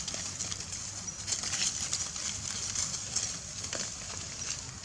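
Dry leaf litter rustling and crackling in many small irregular ticks as monkeys move and handle things among the fallen leaves, over a steady low hum.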